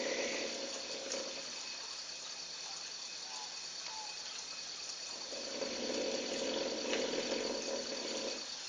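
A lion snoring in slow, deep breaths. One snore fades out about a second in, and a second long snore comes about five seconds in and lasts about three seconds.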